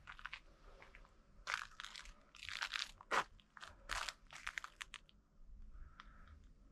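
Footsteps crunching on the forest trail, a close run of crackly steps in the middle that fades to quieter scuffs near the end.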